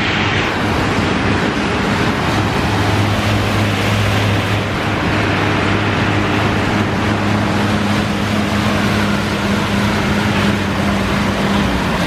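Assault AirBike fan whooshing steadily as the rider pedals and pumps the handles hard, a continuous rush of air with a low hum underneath.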